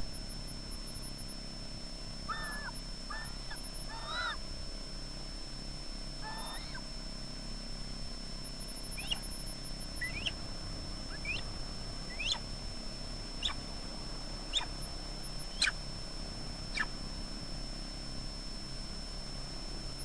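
Osprey calling: a few short harsh calls, then a series of about eight sharp, quickly sweeping whistles roughly one a second, over a steady hiss.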